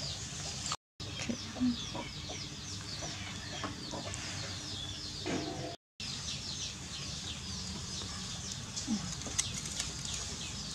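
Chickens clucking in the background with rapid, high-pitched chirping throughout. The sound cuts out completely twice, about a second in and about six seconds in.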